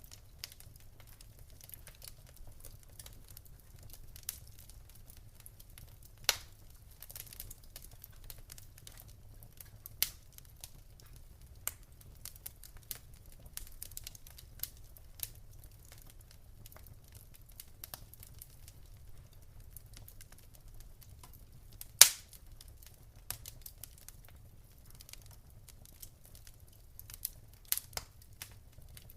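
Wood fire burning in a fireplace, crackling and popping irregularly over a low steady rumble, with a few sharp loud pops, the loudest about two-thirds of the way through.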